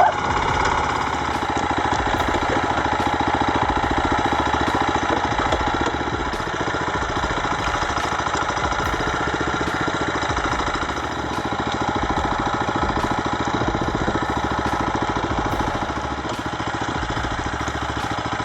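An engine running steadily at an even speed, its firing a rapid, regular pulse throughout.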